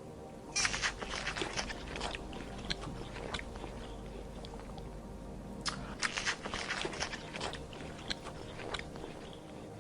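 An animal chewing crunchy food: two spells of rapid, crisp crunches, the first starting about half a second in and the second a little before six seconds in, over a steady low hum.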